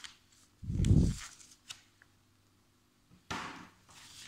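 A glossy magazine page being turned: a short paper rustle about three seconds in, after a dull low thump about a second in that is the loudest sound.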